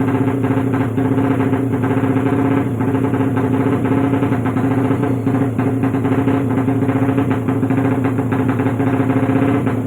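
Motorcycle engine idling steadily as it warms up, freshly rebuilt and just put back in the bike.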